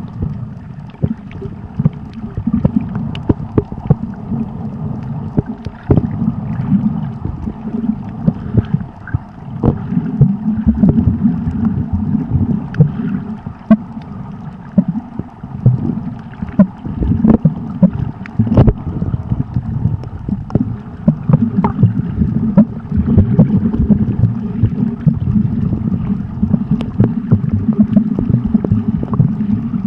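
Underwater sound picked up by a camera in the water while snorkeling: an uneven low rumble of moving water and handling, with many scattered sharp clicks.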